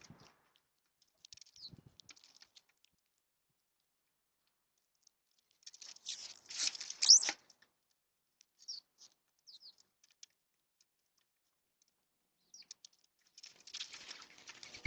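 Small birds at a feeder: a few short, high chirps scattered through, and two brief bursts of rustling, pattering noise, the louder about six seconds in and another near the end.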